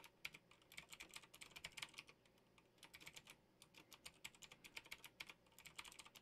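Computer keyboard typing: faint, quick runs of keystrokes with a short pause near the middle.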